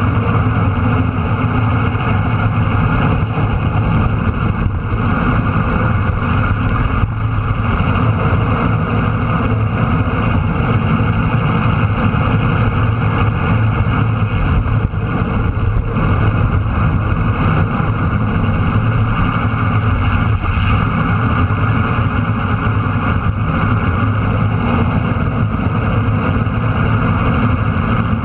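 Motorcycle riding at a steady cruising speed on the open road: a constant low engine drone under rushing wind noise.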